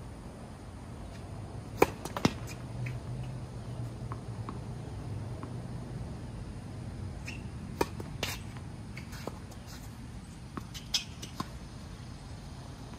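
Tennis ball knocks on a court: a few sharp impacts of racket strikes and bounces, the loudest in two close pairs about six seconds apart, with fainter knocks near the end. Between them come short high squeaks of shoes, over a low steady hum.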